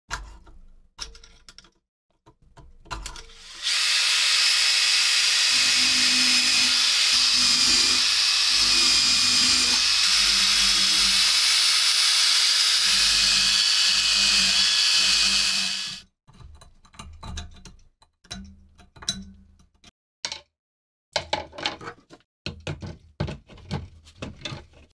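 A rotary tool's spinning wire brush scrubbing rust off the steel socket of a bayonet, a steady whine with a hiss for about twelve seconds. Before and after it come scattered clicks and knocks of the metal parts being handled.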